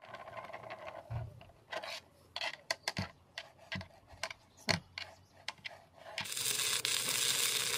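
Sharp metal clicks, taps and scrapes of a welding rod being fitted into the jaws of a homemade spring-loaded electrode holder. About six seconds in, a steady hiss begins.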